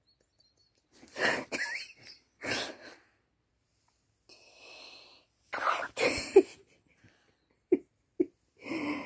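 Dog huffing and snorting in several short breathy bursts, with a couple of brief grunts near the end, while it play-mouths at a hand on its muzzle.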